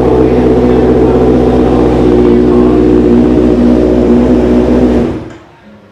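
2018 Kawasaki Z900's inline-four engine idling steadily through an SC-Project titanium full-system exhaust, loud and even, then dying away about five seconds in.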